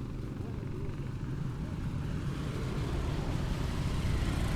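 Street traffic: a steady low rumble of vehicle engines, growing a little louder near the end.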